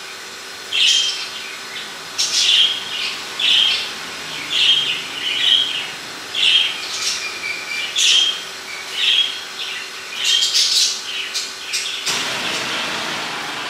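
Kitchen knife cutting the eyes out of a peeled pineapple: a short high-pitched cut about once a second as the blade works around the fruit. A steady rushing noise comes in near the end.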